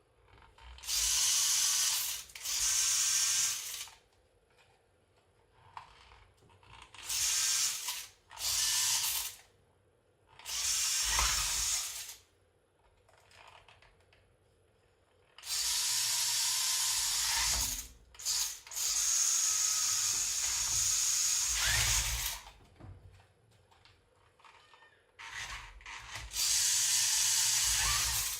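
Electric drive motor and gearbox of a Rabing 1:14 4WD RC crawler truck running in repeated bursts of one to four seconds, stopping and starting as the truck is driven back and forth.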